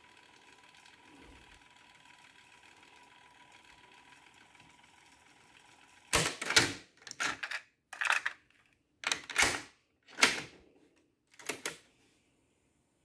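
Marantz 1810 cassette deck's piano-key transport controls and cassette door clunking, about six loud mechanical clunks in a row starting about six seconds in. Before them the deck runs faintly with a thin steady tone playing.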